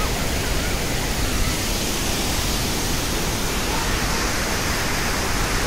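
Waterfall: a steady, loud rush of falling water that does not let up.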